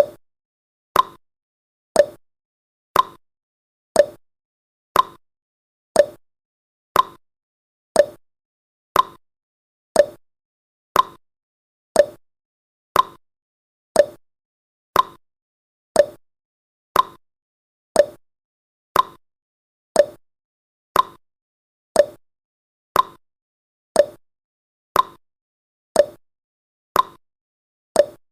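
Countdown timer's clock-tick sound effect: one short, sharp tick every second, evenly spaced, with silence between the ticks.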